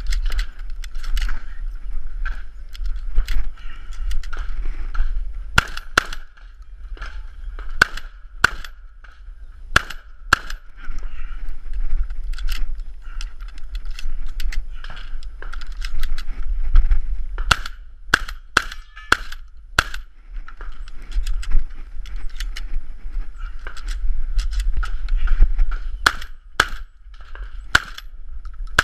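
Pump-action shotgun fired many times in quick pairs and short runs. There are gaps between the strings while shells are hand-loaded into the magazine tube.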